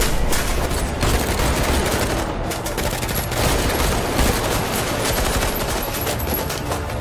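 A sustained barrage of rapid gunfire from several guns, the shots packed so closely that they run together without a pause.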